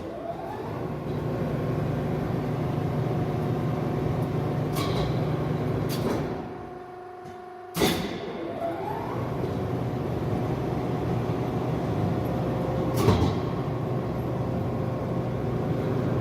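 Škoda SRM 100/4000 heavy centre lathe, its 37 kW spindle drive spinning up with a rising whine and then running steadily with a low hum. About six seconds in it drops away; after a sharp click near eight seconds it spins up again and runs on.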